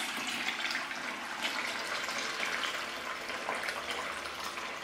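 Cooled wort running from a siphon hose into a plastic fermenting bucket: a steady pour of liquid into liquid.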